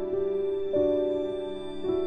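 Slow, sad background music of held notes, with new notes coming in twice and fading after each.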